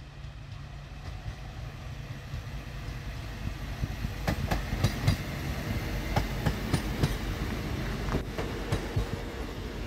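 Two-car diesel multiple unit approaching and passing close by, its diesel engine running with a low rumble that grows louder. From about four seconds in, its wheels click sharply over the rails.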